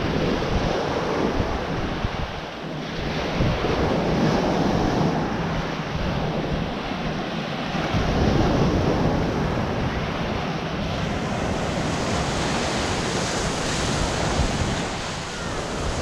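Ocean surf breaking and washing up a sandy beach: a continuous rush that swells and eases with each wave, with wind buffeting the microphone.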